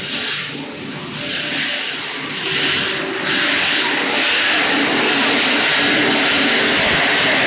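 Running noise of a PVC pelletizing line's pellet air-conveying system: a steady rushing hiss from the blower and pipes over a low machine hum, getting louder about three seconds in.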